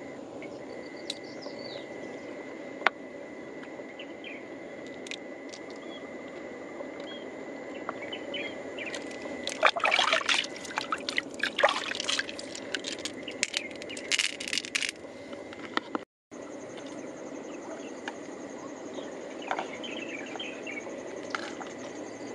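Water splashing in quick bursts for about six seconds, from about nine seconds in, as a hand swishes and rinses pearls in a shallow pool of creek water.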